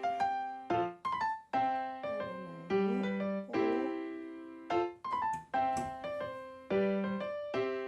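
Background music: a light keyboard tune played as separate struck notes in short phrases, each note dying away before the next.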